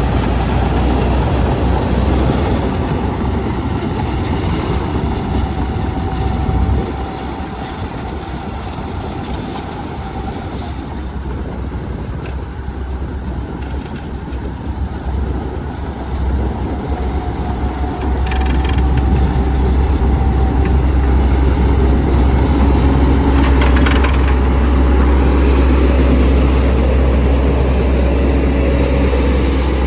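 Heavy construction machine's engine running steadily with a deep hum, dropping in level about seven seconds in and growing louder again around eighteen seconds.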